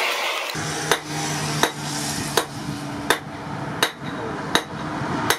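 A hammer striking metal in a steady rhythm, seven blows at even spacing of about one every 0.7 seconds, over a steady low hum.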